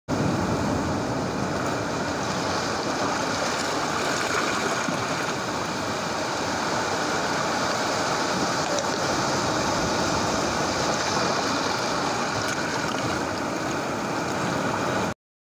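Small ocean waves washing onto a sandy beach, a steady wash of surf that cuts off abruptly near the end.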